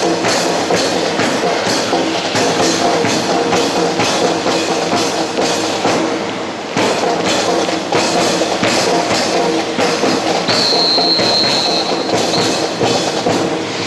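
Music with a steady drum beat, played loud over a public address. A high steady tone sounds for about two seconds near the end.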